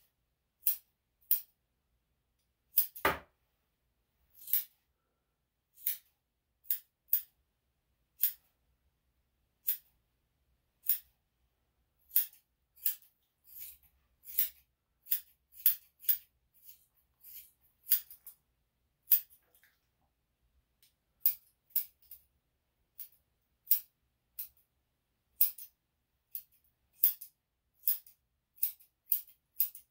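Straight grooming scissors snipping the fur around a dog's front paw: dozens of short, sharp snips at an uneven pace, a second or less apart, with one heavier knock about three seconds in.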